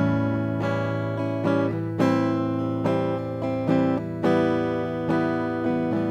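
Acoustic guitar heard through an Artec MSP 50 pickup, played as a run of strummed and plucked chords. A new chord is struck about every half second to second and left to ring.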